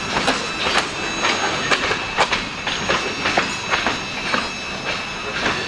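Freight cars rolling past on the rails, the wheels clacking irregularly over rail joints under a steady rumble, with a faint thin high squeal from the wheels.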